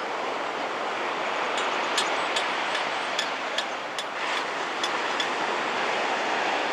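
Small shore-break waves breaking and washing up a beach, a steady rush of surf that swells slightly, with a scatter of small sharp clicks through the middle.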